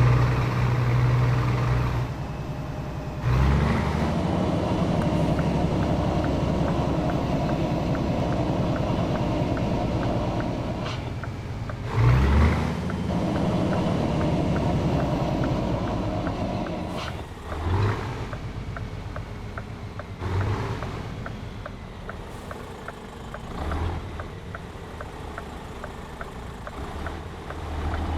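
Scania 500S truck's straight-piped diesel engine, running steadily at first, then pulling under load with the engine note dropping and surging back at gear changes about three and twelve seconds in. The sound then grows quieter, with several short surges near the end.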